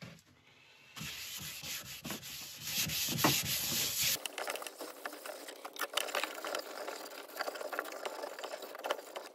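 Cloth rubbing over a turned olive ash bowl on the lathe, wiping the freshly sanded wood down with isopropyl alcohol. The rubbing changes abruptly about four seconds in and carries scattered light clicks after that.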